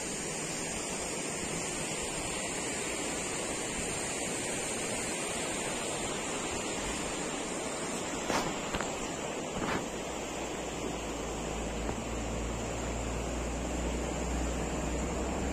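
Steady outdoor rushing noise with a faint high steady hiss above it, broken by two short sharp sounds around the middle. A low vehicle rumble builds over the last few seconds as a vehicle approaches.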